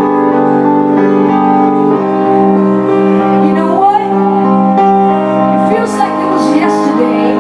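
Live rock band playing: held keyboard chords that change about every two seconds, with cymbal strokes coming in near the end.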